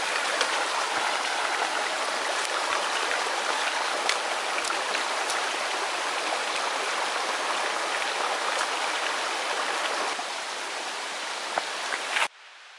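Shallow rocky creek running and babbling over stones, a steady rush of water. It drops a little in level about ten seconds in and cuts off suddenly near the end.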